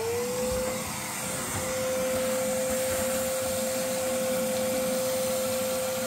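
Wet/dry shop vacuum running, its motor whine rising as it spins up at the start and then holding one steady pitch over loud rushing air as the hose sucks dirt and debris off a rusty steel truck bed floor.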